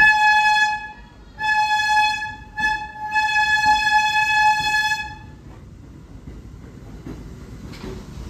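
R32 subway train's horn sounding three blasts, the last and longest about two and a half seconds. Then the quieter rumble of the train pulling into the station.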